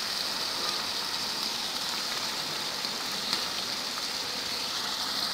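Chicken curry with beaten egg poured over it sizzling in a hot pan: a steady, even hiss.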